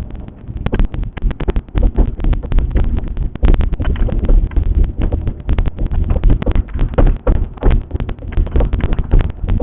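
Knocking and clunking from the rear end of a BMW E36, many sharp irregular knocks over a steady low rumble: a fault the owner has not been able to trace.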